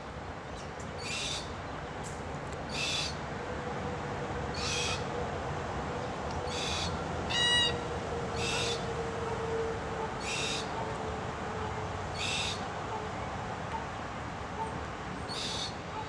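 Red-tailed black cockatoo calling: about eight short, high, scratchy calls, one every two seconds or so.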